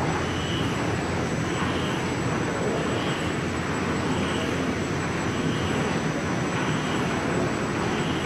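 Large cloth batching machine running steadily as it winds a big roll of glass-fibre woven cloth: a continuous mechanical drone with a faint swish recurring about once a second and a thin high whine over it.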